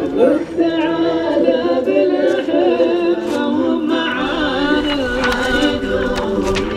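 Several voices singing a song together, choir-like, with held and gliding notes.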